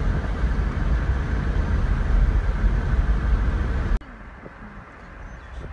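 Road and engine noise inside a moving car: a steady low rumble that cuts off abruptly about four seconds in, leaving a much quieter background.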